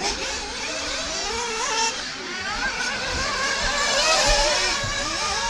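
Several nitro RC buggies' small two-stroke glow engines revving up and down around the track, their pitches rising and falling over one another.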